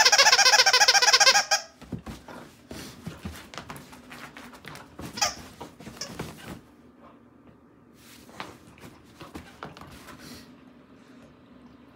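A loud, rapidly pulsing squeal that stops about a second and a half in, while a dog leaps about on a bed. It is followed by soft thumps, bedding rustling and paws scrabbling as the dog bounds across the bed and runs off over the floor.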